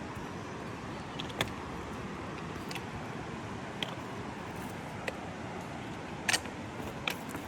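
Steady rushing background noise with a handful of sharp taps scattered through it: footsteps on stone steps going down a rock staircase.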